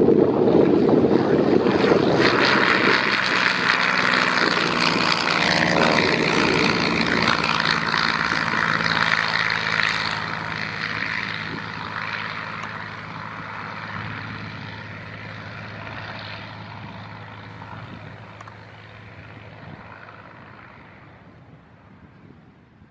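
Piper PA-25 Pawnee's piston engine and propeller running at takeoff power as the plane lifts off and climbs away. Loud at first, then fading steadily from about ten seconds in until faint at the end.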